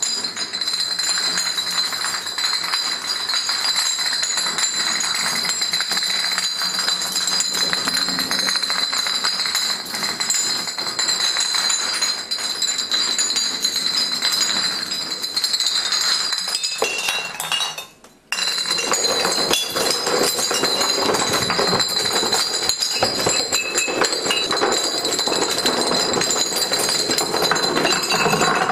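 Glass beer bottles toppling one after another in a long domino chain: a rapid, continuous clinking and rattling of glass knocking on glass and on the floor. The sound breaks off briefly about 18 seconds in.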